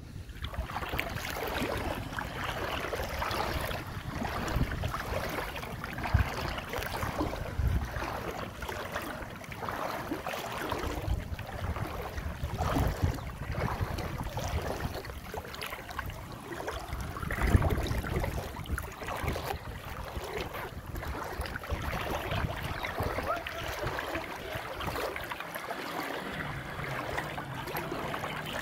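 Floodwater sloshing and splashing in an uneven rhythm as someone wades through it, with a few louder splashes, the loudest about two-thirds of the way through.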